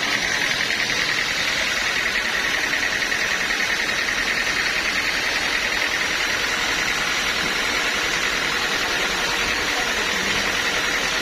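Sawmill machinery running steadily, a constant mechanical noise with a high whine held at one pitch.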